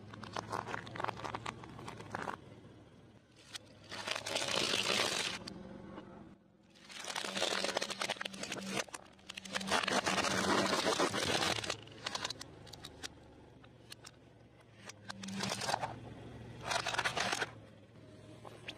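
A car tyre rolling slowly over cucumbers and plastic toys, crushing them in about six separate bursts of crunching and cracking, each a second or two long. A low steady engine hum runs underneath.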